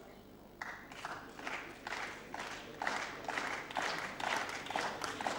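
Applause from the members in the chamber, fairly faint: a run of hand claps starting about half a second in and carrying on steadily.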